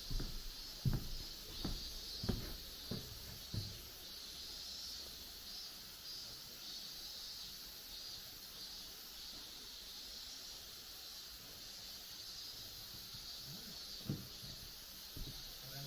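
Footsteps on a hiking path: a run of steady steps in the first few seconds, a pause, then more steps near the end. A steady high hiss runs underneath.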